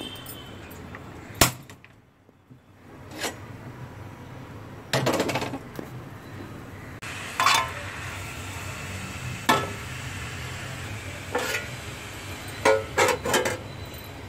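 Metal spoon knocking and scraping against an iron kadai while stirring grated beetroot, in separate sharp clinks spaced a second or two apart. Near the end, a quick group of metallic knocks as a flat metal lid is set on the pan.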